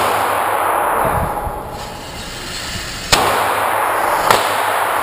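Pistol shots: two sharp reports about a second apart, each trailing off in a long echo, with the echo of a shot fired just before still fading at the start.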